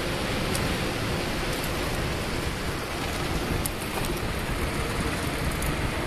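Steady rushing hiss of wind and tyre noise from a bicycle rolling fast downhill on asphalt, with a few faint ticks.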